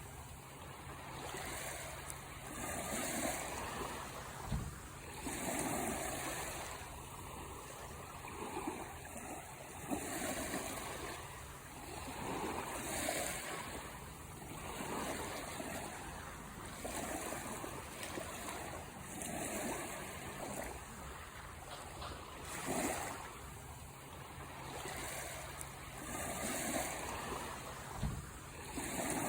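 Sea waves washing onto a shore, a steady rush that swells and falls back every two to three seconds.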